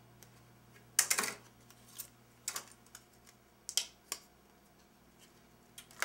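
Plastic blister packaging of a laptop RAM stick being opened: a few sharp plastic clicks and crackles, the loudest about a second in.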